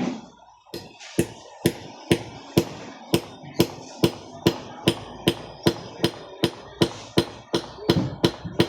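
Hammer blows struck one after another at a steady pace, a little over two a second, each with a short ringing knock.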